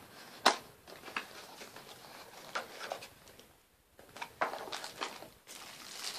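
Cardboard phone packaging being handled: a sharp tap about half a second in, then light knocks, scraping and rustling as the box is opened and the inner tray is slid out and set down.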